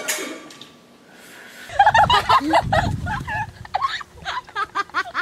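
A chime-like ringing fades away in the first second. Then, from about two seconds in, several teenage girls burst into loud, shrieking laughter over a low rumble.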